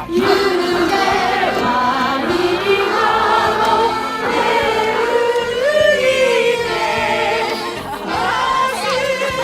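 A song playing: sung voices, with vibrato, over instrumental accompaniment.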